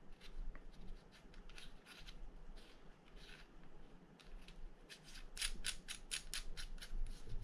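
Small sharp clicks as a cap is twisted by hand onto the body of a Fin-Nor Offshore 7500 spinning reel. The clicks are scattered at first, then come in a quick run of about ten, roughly five a second, near the end.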